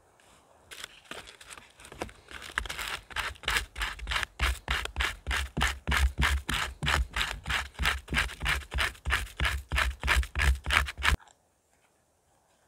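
A hand saw cutting wood in steady back-and-forth scraping strokes, about three a second, growing louder over the first few seconds and stopping suddenly near the end.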